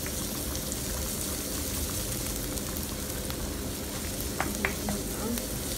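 Chopped onion and garlic sizzling steadily in oil in a nonstick frying pan while being stirred with a wooden spoon, with a few sharp clicks near the end.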